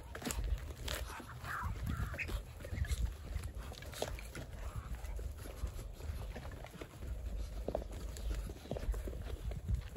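A flock of Muscovy ducks moving about on dirt and calling softly in brief, scattered calls, with a person's footsteps close by.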